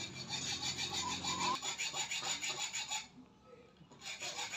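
A baby monkey chewing and smacking on custard apple flesh: a quick, scratchy, evenly repeating rasp that breaks off for about a second near the end and then starts again.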